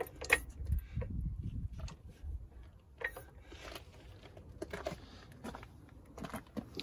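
Faint, irregular metallic clicks and light knocks of suspension parts and tools being handled, over a low rumble.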